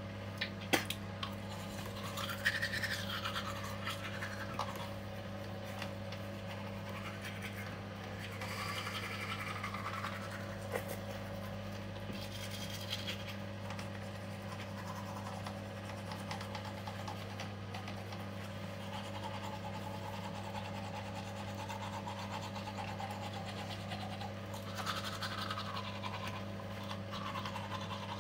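Teeth brushed by hand with an electric toothbrush whose battery is dead: soft, irregular scrubbing of the bristles, with no motor buzz. A steady low hum runs underneath.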